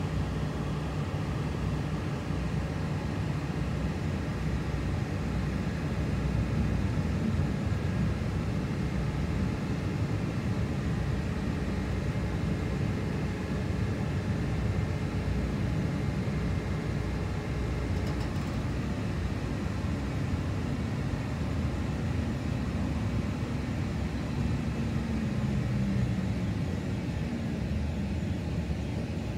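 Tram running, heard from inside the passenger cabin: a steady rumble of wheels and motors with faint motor whine. Near the end the whine falls in pitch as the tram slows for a stop.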